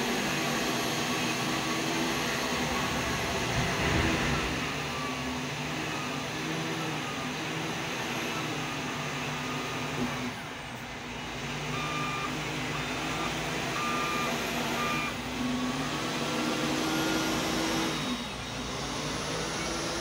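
Liugong 856H wheel loader's diesel engine running and revving as it works. Past the middle its reversing alarm beeps about once a second for a few seconds.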